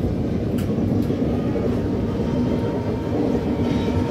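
Passenger train running along the line, heard from aboard a carriage: a steady low rumble of wheels on rails and carriage noise.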